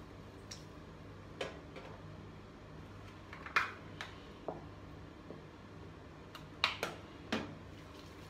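Light clicks and knocks of plastic skincare bottles and tubes being handled and set down on a bathroom counter, about nine scattered taps, the sharpest a third of the way in and a close pair near the end, over a low steady hum.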